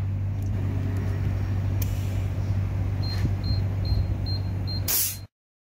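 Tyre inflator at work on a car tyre, its air hose fitted to the valve: a steady low mechanical hum, with a run of about five short high beeps from the inflator from about three seconds in, then a short hiss near the end before the sound cuts off suddenly.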